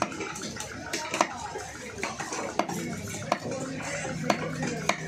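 Knife blade knocking on a wooden chopping block as fish is cut into pieces: sharp, separate knocks roughly once a second, over a background of voices.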